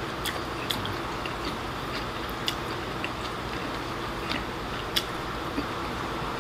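Chopsticks clicking against a ceramic rice bowl while rice is scooped and eaten: about six sharp, irregular clicks, with quiet chewing under a steady room hiss.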